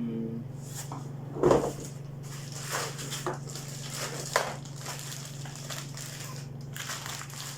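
Packaging being handled during an unboxing: plastic and paper crinkling and rustling in short irregular bursts, with a louder knock about 1.5 seconds in. A steady low hum runs underneath.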